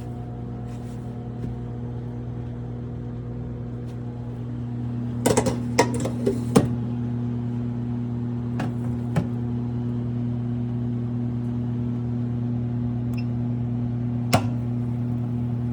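Fetco commercial coffee brewer running through its brew cycle with a steady electrical hum, a little louder from about four seconds in. Several sharp clicks and knocks come in a quick cluster a few seconds in, two more around the middle and one near the end.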